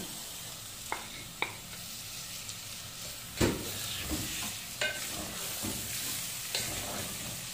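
Marinated chicken pieces sizzling as they fry in hot oil with onions in a metal pot, being stirred with a wooden spatula. The spatula knocks against the pot about six times, loudest about three and a half seconds in.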